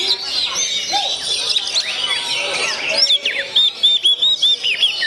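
Oriental magpie-robin (kacer) singing a fast, varied run of whistles and chirps; about three and a half seconds in it breaks into a quick series of short, repeated arched notes.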